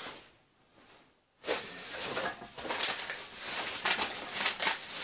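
Plastic anti-static bag crinkling and rustling as it is handled, a dense crackle of small clicks that starts about a second and a half in, after a short pause.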